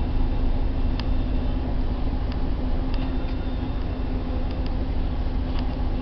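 Interior of a moving bus: the engine and road noise make a steady low drone with a constant hum, and scattered sharp clicks and rattles come through.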